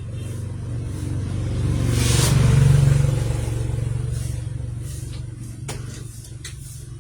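A motor vehicle driving past: its engine hum swells, loudest about two and a half seconds in, then fades away.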